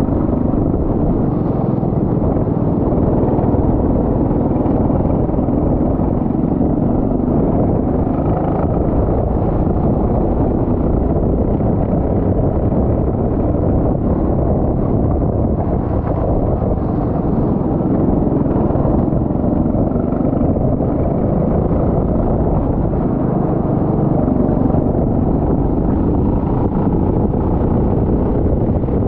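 Go-kart engine running steadily, its pitch rising and falling a little.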